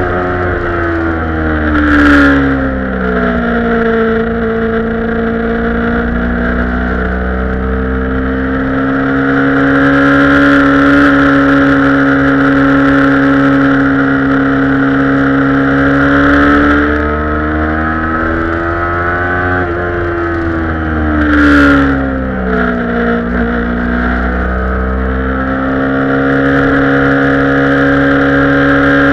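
Kawasaki Ninja 250 parallel-twin engine heard onboard with wind rush, its pitch dropping as the bike slows twice, about two seconds in and again near the end, holding steady in between and rising just before the second drop. A brief sharp noise comes with each drop.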